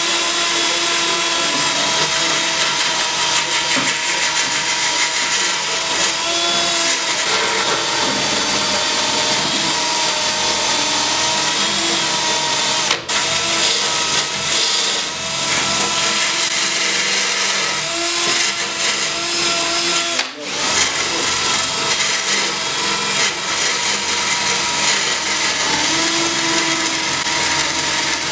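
Small cordless rotary tool spinning a wire cup brush against the sheet-metal engine bay, scrubbing seam sealer out of the seams and holes: a steady high motor whine over a grinding hiss, its pitch wandering a little as the brush loads up. It cuts out briefly twice, about halfway through and about two-thirds of the way through.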